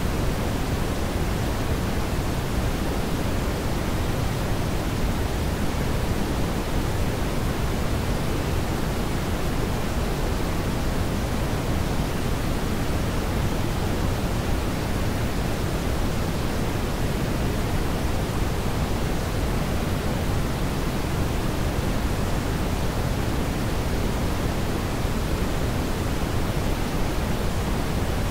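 Brown noise: a steady, unchanging noise signal, heavier in the low end than white noise and thinning out toward the highs.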